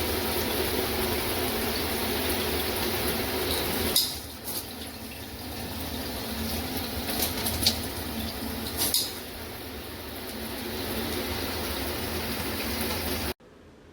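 Water spraying from a SparkPod filtered shower head in a steady rush. About four seconds in the spray's sound changes and thins, with a few sharp clicks, and it cuts off abruptly near the end.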